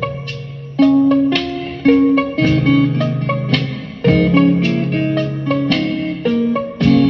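Mellow guitar music: plucked chords and single notes that ring out and fade, with a new chord about every second, over a low sustained bass.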